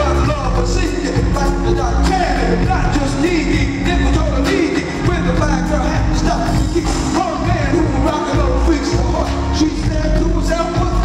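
Live R&B band with drum kit and keyboards playing an upbeat song at full volume through the PA, with a male lead singer on microphone.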